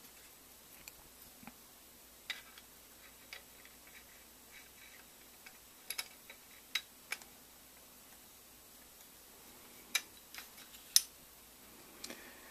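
Metal rail handguard and AK parts clicking and knocking together as the rail is worked into place over the barrel: scattered sharp clicks, a few in quick pairs, the loudest about eleven seconds in.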